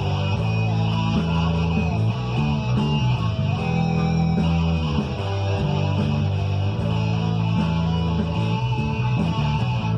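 Guitar played over a backing track, with a bass line running under it.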